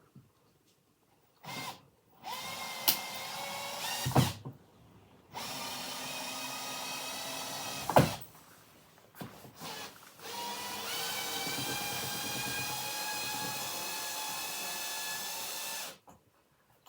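Power drill, not on hammer mode, driving long screws out of a wooden armchair frame: three runs of the motor whine, the last and longest rising as it speeds up and then holding steady. Sharp knocks come between the runs.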